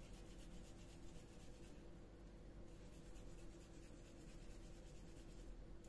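Faint soft rubbing of hands rolling raw minced-meat köfte mixture between the palms, over a low steady hum.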